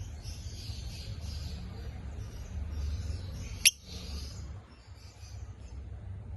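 Lovebird giving a single short, sharp high chirp that drops in pitch, a little past halfway, over a low steady background rumble.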